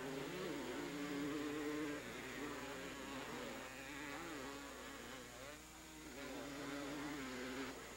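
A racing ATV's engine buzzing at high revs, its pitch rising and falling over and over as the throttle is worked on and off.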